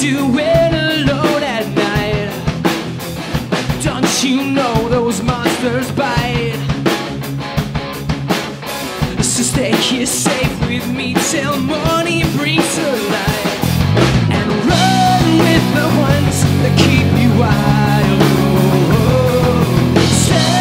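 Live rock band playing: a male lead voice singing over electric guitars, bass guitar and a drum kit. About two-thirds of the way through, the band comes in louder with a heavier low end.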